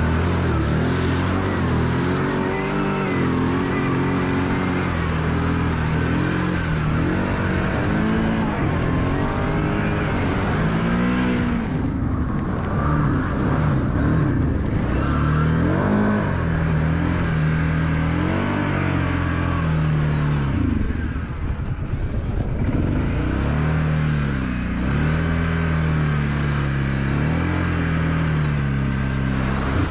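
Kawasaki KVF 750 Brute Force ATV's V-twin engine revving up and down over and over as the quad is ridden through mud and standing water. Water and mud spray hiss off the tyres through roughly the first ten seconds.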